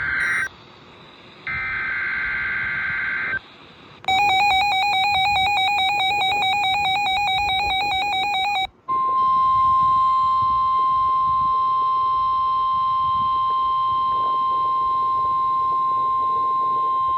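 NOAA Weather Radio alert sequence: two short, buzzy SAME digital header bursts, then a rapidly warbling electronic alert tone for about five seconds, then the steady single-pitch 1050 Hz warning alarm tone held for about eight seconds. The sequence signals an incoming watch or warning, here a tornado watch.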